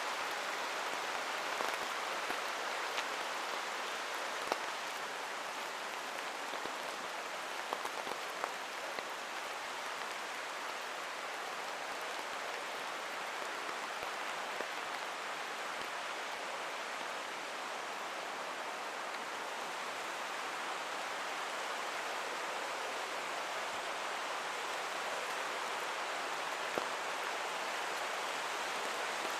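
Steady rain falling through forest, with scattered sharper taps of single drops, over the continuous rush of a flowing creek.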